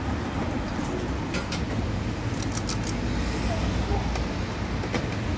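Busy street-stall ambience: a steady low rumble with faint background voices, and a few light clicks of a metal scoop against a plastic tray of cream filling.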